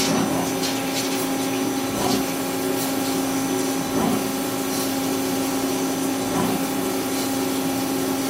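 CNC lathe running just after cycle start: a steady machine hum with a constant tone, and a few light knocks about two seconds apart.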